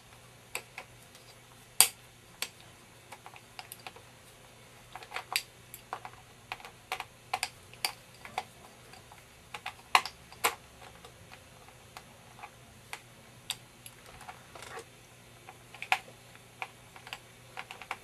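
Scattered sharp clicks and taps, irregular in timing, from a Phillips screwdriver working the small screw of a netbook's plastic memory-compartment cover.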